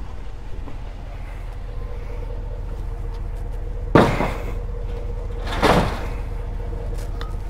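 Two heavy knocks under two seconds apart, about halfway through, as concrete cinder blocks are loaded onto a utility trailer. A steady low hum runs underneath.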